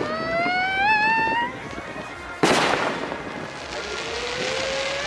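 Fireworks: a whistling firework rising in pitch, then a sharp bang of a shell bursting about halfway through, and another rising whistle starting near the end.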